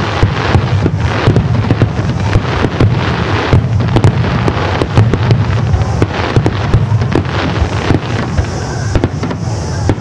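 Fireworks going off in a dense barrage: many rapid sharp bangs and crackles over a steady low rumble.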